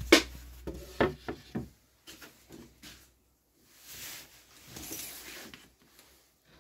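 A thin fibreboard sheet set down on a wooden workbench: a sharp knock, then a few lighter knocks and taps over the next couple of seconds, followed by two soft rubbing sounds about four and five seconds in.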